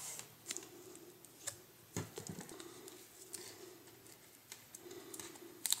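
Vinyl electrical tape being pulled off the roll and wrapped around twisted wire splices: faint crackling with scattered small sharp ticks.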